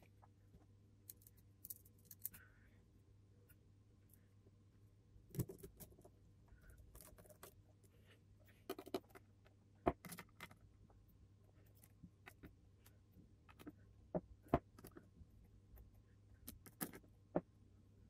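Small screwdriver clicking and tapping against the screws of a hard drive's controller board as the board is screwed back on: a dozen or so light, sharp metal clicks at irregular intervals.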